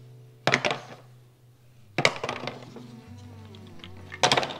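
Small clear plastic cases clacking against each other and the hard countertop as they are handled and set down: three short clatters, the last a quick double.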